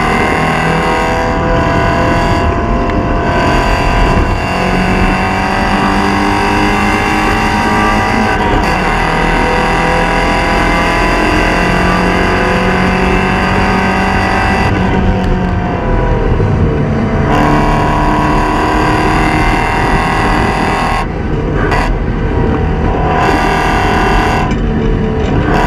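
Porsche 944 Spec race car's four-cylinder engine running hard, rising in pitch as it pulls through the revs. The upper sound drops away briefly around the middle and several times near the end as the throttle is lifted.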